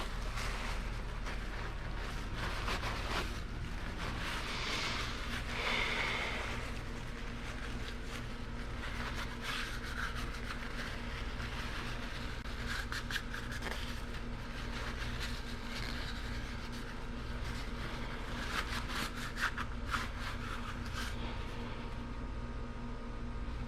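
Light rubbing, scraping and scattered small clicks of motorcycle engine parts being handled, over a steady low background hum.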